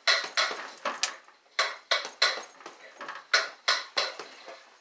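Fists striking a fabric laundry hamper hung beneath a mini basketball hoop and used as a punching bag. Sharp slaps and rattles come in quick clusters of punches, about eight hits in all.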